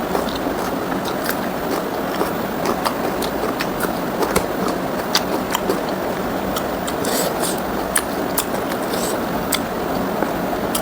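Close-miked eating sounds: chewing and wet mouth clicks and smacks from someone eating pork ribs with rice and gravy, coming irregularly over a steady background noise.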